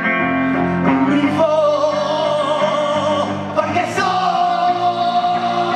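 A man singing into a microphone in long, drawn-out vowel notes with no clear words, stepping up in pitch, the last note held from about four seconds in.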